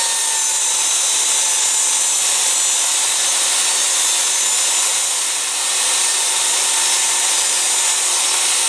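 DEWALT jobsite table saw running, its blade cutting the kerf slot through the half-inch birch plywood base of a crosscut sled as the sled is pushed through. The saw makes a steady, high, hissing cutting noise.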